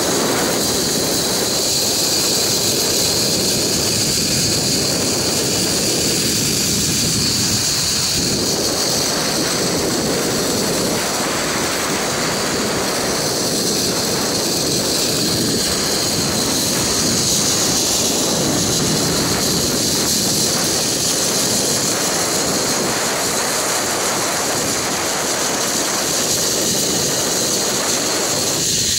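Steady rushing noise of a fast zipline ride: wind buffeting the microphone mixed with the trolley's wheels whirring along the cable, with a constant high hiss over a rumble that swells and eases.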